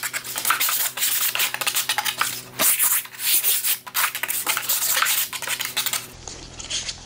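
Sanding block with 120-grit sandpaper rubbed by hand in quick back-and-forth strokes along the cut edge of a laminate sheet, knocking off its sharp, chippy edges. The rasping strokes stop about six seconds in.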